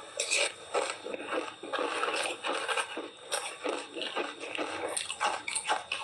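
A person crunching and chewing ice dusted with matcha tea powder: a dense, irregular run of crisp cracks and crackles.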